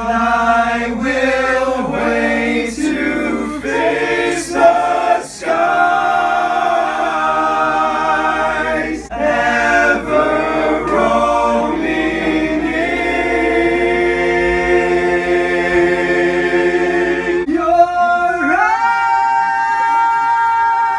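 A group of men singing a cappella in harmony, with quicker changing notes for the first few seconds, then long held chords, and a new chord sliding up near the end.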